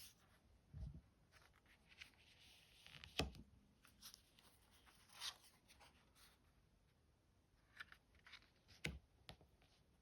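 Quiet handling of oracle cards: soft slides and brushes of card stock, with a sharp tap about three seconds in and another near the end.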